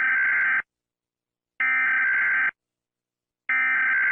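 Emergency Alert System SAME digital data bursts: harsh, buzzing two-tone warbles just under a second long, repeated about every two seconds, the coded end-of-message signal that closes an alert broadcast.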